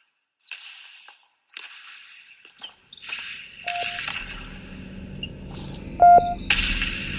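Sound-design effects: a few short hissing swishes, then a low electronic hum under which two short pitched beeps sound about two and a half seconds apart, with a louder hissing swish near the end.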